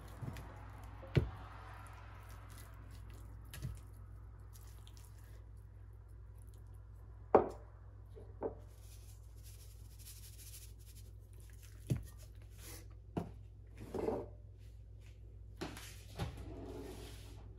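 Hands seasoning and turning a raw whole chicken in a glass roasting dish: soft handling of the wet skin, with about nine scattered knocks and clicks as spice shakers and the bird are set down.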